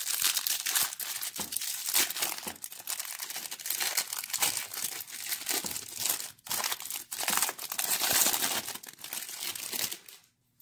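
Clear plastic wrapper of a baseball card pack crinkling and tearing as it is peeled off the card stack by hand, with a couple of brief pauses and stopping just before the end.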